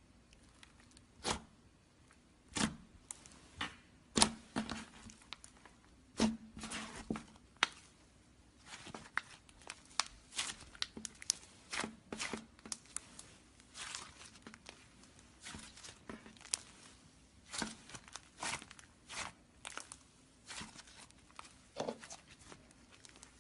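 Slime being squeezed and stretched by hand, giving irregular sharp crackles, pops and clicks that come thicker after the first few seconds.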